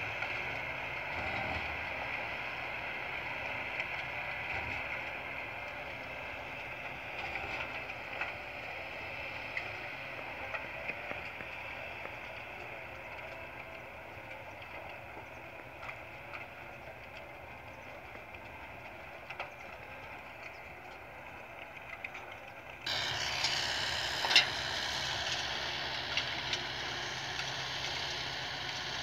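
Tractor running steadily as it pulls a manure spreader across the field while spreading cattle manure. It slowly fades as it draws away, then turns suddenly louder and brighter about 23 seconds in, with one sharp knock just after.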